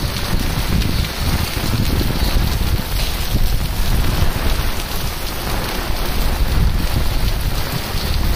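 Heavy rain pouring down in a steady hiss, with wind buffeting the microphone in a low, fluttering rumble.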